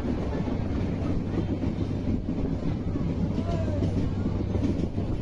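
Passenger train running along the line: a steady low rumble of the wheels and carriage on the track.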